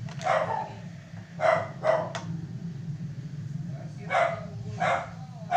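A dog barking repeatedly: short single barks, some in quick pairs, over a steady low hum.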